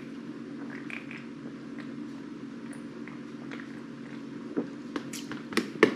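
A man swallowing soda from a can in quiet gulps over a steady low hum, then a few sharp knocks near the end.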